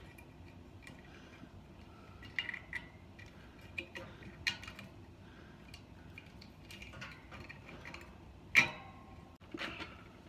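Scattered small clicks and clinks of hands handling wire and small metal parts while wiring a plug cord into a fan's junction box, with one sharp knock about eight and a half seconds in.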